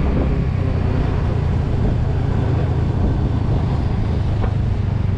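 Motorcycle running steadily while being ridden, with a constant low rumble of engine and road noise.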